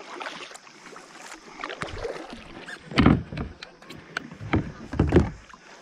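Kayak paddle strokes in calm river water: several soft swishing dips, the strongest about three seconds in and twice more near the end, with a few light clicks in between.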